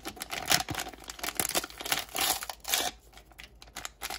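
Crinkling and tearing of a Barbie Color Reveal accessory packet as it is pulled open by hand, in irregular crackles that ease off briefly about three seconds in.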